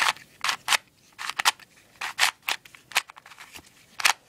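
A Transformers-edition Rubik's Cube being turned by hand. Its plastic layers click and scrape in short, irregular snaps, two or three a second, some bunched together. The turning is rough, which the owner rates as not that great.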